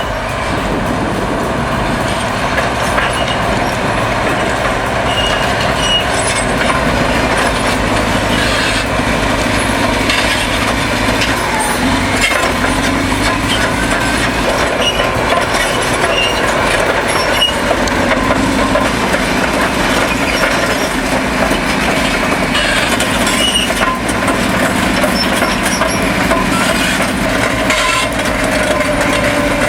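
Caterpillar D11N crawler dozer working: its large diesel engine runs steadily under the clank and squeal of the steel tracks, with a slightly falling squeal near the end.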